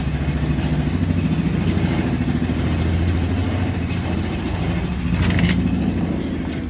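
Yamaha Viking side-by-side's single-cylinder engine idling steadily while it warms up after a start, swelling slightly a little before the end.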